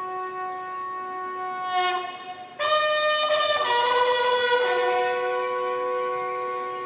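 Brass bugles sounding long, steady held notes of a ceremonial call. About two and a half seconds in they come in louder on a higher set of notes, and they settle back to the first notes at about the five-second mark.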